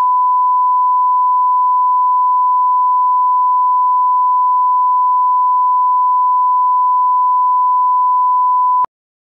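Bars-and-tone line-up tone: a loud, steady, pure 1 kHz test tone played with SMPTE colour bars as a level reference. It cuts off abruptly near the end.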